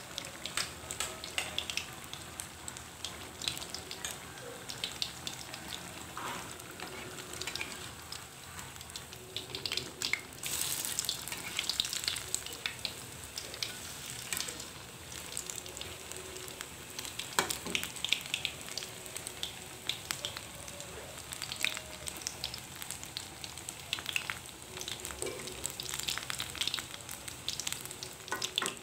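Battered kepok banana pieces deep-frying in hot oil in a wok, sizzling with a steady crackle of small pops. A metal spatula now and then knocks against the pan as it stirs and turns the pieces.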